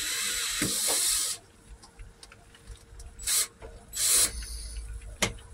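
Ratchet wrench tightening a pipe fitting: a long run of fast ratchet clicks that stops about a second and a half in, then two short bursts of ratcheting a little past three and four seconds, and a single click near the end.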